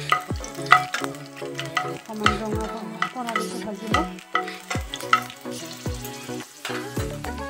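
Garlic cloves sizzling in hot oil in a nonstick pan, with a spatula stirring and scraping against the pan in short strokes. Background music with a regular bass beat plays underneath.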